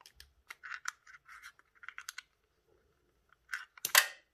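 Hands handling a small round black plastic part: light clicks and scrapes of fingers and nails on plastic, with a sharper clack and scrape about four seconds in, the loudest sound.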